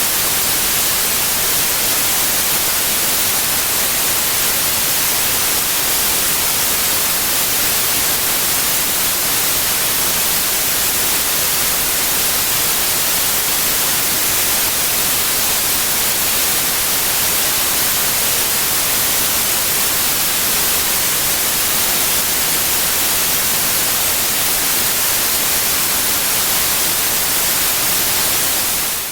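Steady synthetic white noise, an even hiss that is brightest in the treble and constant in level, played in the right channel only.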